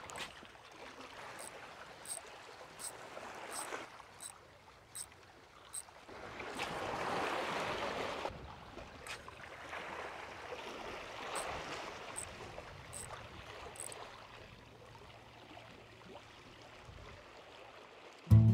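Small sea waves washing on shore rocks, a soft steady wash that swells up for a couple of seconds near the middle, with faint light ticks about every 0.7 seconds.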